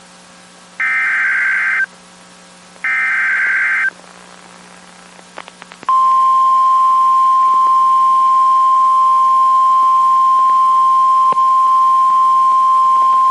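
Emergency Alert System SAME data header: two one-second bursts of rapid digital data tones about a second apart, the last two of the header's three repeats. After a pause with a few faint clicks, NOAA Weather Radio's steady 1050 Hz warning alarm tone begins about six seconds in, signalling that a weather warning is about to be read.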